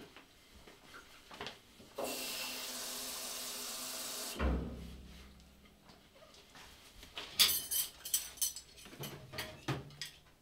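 Kitchen washing-up sounds. A tap runs steadily for about two seconds and stops with a low thud. Later, a quick run of clinks and knocks from plates and cutlery being handled.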